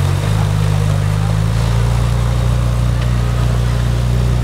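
Ferrari 458 Italia Spider's naturally aspirated 4.5-litre V8 idling steadily through its triple centre exhaust, its idle note shifting slightly about a quarter-second in.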